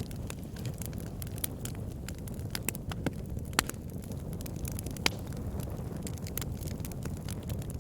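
Campfire burning: a steady low rush of flames with irregular crackles and sharp pops of burning wood, a few louder snaps among them.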